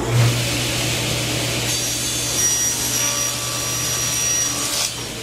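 Table saw motor starting up at the beginning and then running with a steady hum. From about two seconds in, the blade crosscuts a wooden board fed on a miter gauge, a brighter sawing sound lasting about three seconds. It stops suddenly near the end while the saw keeps running.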